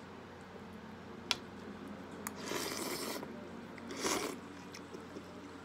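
Noodles and soup slurped from a ceramic soup spoon twice: a longer slurp about halfway through and a shorter, louder one later. A single sharp click comes about a second in.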